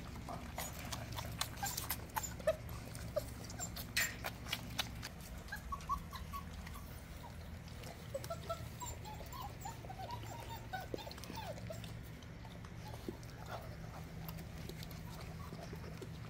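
Weimaraner puppies squeaking and whimpering in many short high notes, mostly in the middle, after a run of sharp clicks and smacks from puppies eating and drinking at their bowls.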